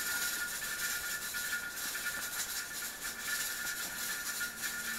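Pressure canner running in the background, venting steam with a steady hiss and a fine, fast rattle.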